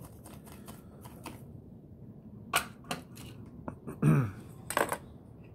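Soldering iron tip being jabbed into a brass-wool tip cleaner: a run of small clicks and taps. Then come several louder metallic knocks and clatters about four to five seconds in, as the iron is handled and set down.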